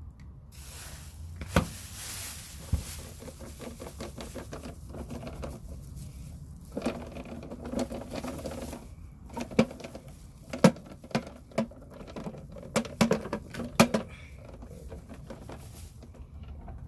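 Dirt and debris emptying from a Shark vacuum's dust canister into a plastic bag: a rushing pour near the start, then rustling of the bag and a run of sharp knocks as the canister is tapped and shaken out.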